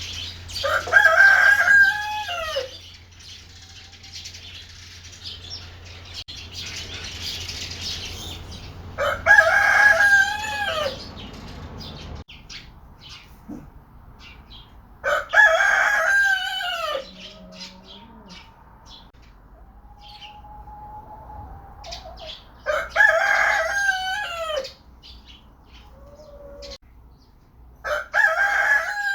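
Rooster crowing five times, roughly every six to seven seconds. Each crow lasts about two seconds and drops in pitch at the end.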